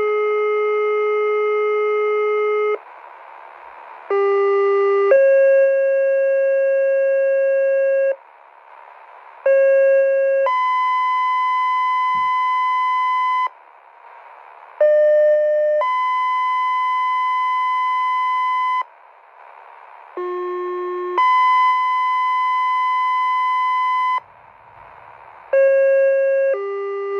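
Motorola Quik-Call II two-tone sequential paging tones from a Zetron Model 25 encoder, heard over GMRS radio. Each page is a steady tone of about a second, then a different tone held about three seconds, and each pair alerts one station's pagers. Five such pairs follow one another about every five seconds, with brief radio hiss between them.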